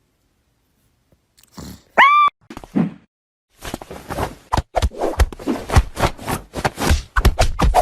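A short high squeak about two seconds in, then a long run of rapid, loud crunching and chewing on something hard.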